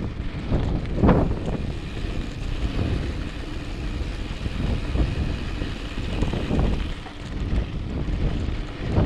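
Wind buffeting the microphone of a mountain biker's point-of-view camera, over the rumble of knobby tyres rolling on a dirt trail. A few louder jolts from bumps in the trail, the biggest about a second in.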